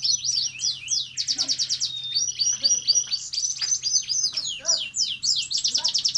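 Red siskin singing a fast, continuous song of high chirps, falling whistles and rapid rattling trills, the 'ngerek' rattle of a bird in breeding condition. The longest trill runs near the end, after a buzzy note in the middle.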